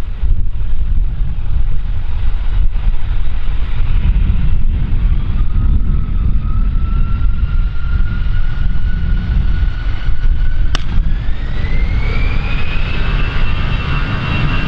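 Airbus A320's turbofan engines spooling up for takeoff: a loud low rumble with a whine that climbs in pitch a few seconds in and then holds at a higher steady tone as takeoff thrust is set.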